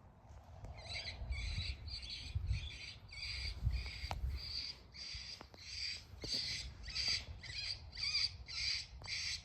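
Predator call playing a prey distress cry: a high, squealing note repeated evenly about twice a second, over a low rumble.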